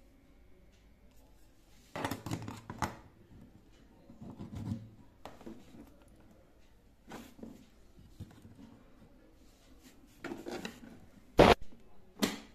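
Handling clicks and rustles as a USB car charger is pushed into a scooter's newly fitted 12 V cigarette-lighter socket. There is a sharp click near the end, the loudest sound, as the ignition key is handled, then a second, lighter click.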